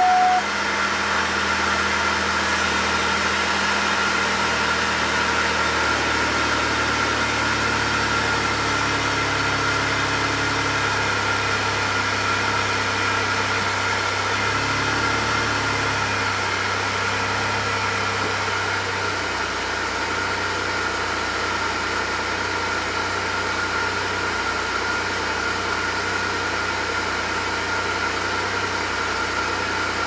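A 2002 Pontiac Grand Prix GT's 3.8-litre 3800 Series II V6 idles just after starting, its speed easing down from a fast idle, with a steady high whine running over the engine sound. The owner calls this idle rough, bogging down about once a second with a faint thumping or chugging.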